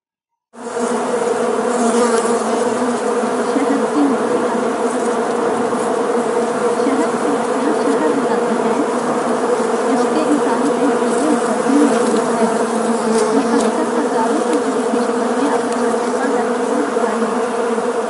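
Many honeybees buzzing at a hive entrance: a dense, steady hum that starts about half a second in.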